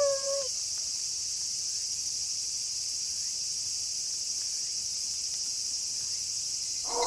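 Steady chorus of crickets chirping at night. A wolf howl falls in pitch and fades out in the first half second, and another howl begins near the end.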